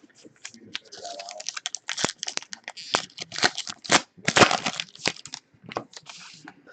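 Card pack wrappers crinkling and tearing open, with quick irregular crackles and snaps as the packs and cards are handled.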